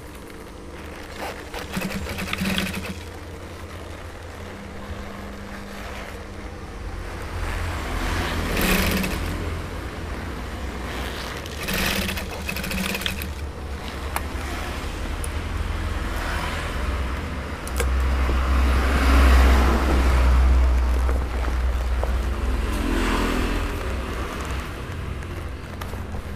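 Industrial sewing machine with an under-table motor humming and stitching a cowhide leather jacket, with the leather rustling as it is turned and fed; the longest, loudest run comes about two-thirds of the way through.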